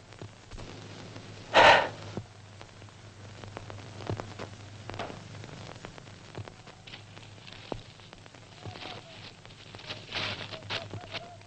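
Old film soundtrack with a steady low hum and crackle, broken about two seconds in by one short, loud, breathy sound, followed by scattered faint rustles and clicks.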